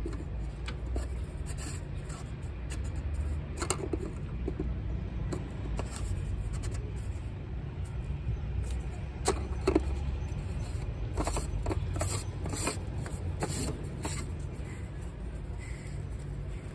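Oil filter housing cap being screwed back on by hand, with scattered clicks and scrapes as it is turned down onto its threads, over a steady low background rumble.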